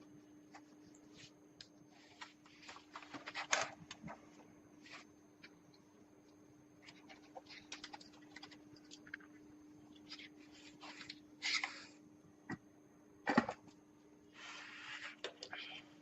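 Scattered clicks, taps and short rustling scrapes of objects being handled, over a faint steady hum.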